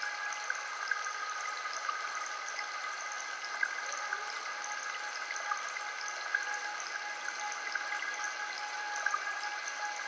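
Steady ambient drone of several held tones over a soft hiss, sprinkled with faint tiny clicks like trickling water.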